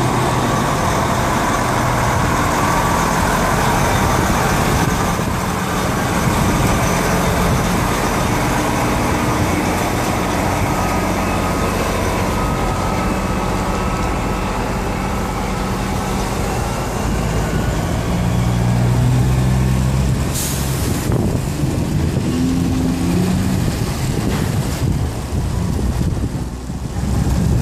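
Semi-trailer truck's diesel engine running with a steady low drone over broad rushing noise, swelling a little about 18 seconds in, with a short hiss at about 20 seconds.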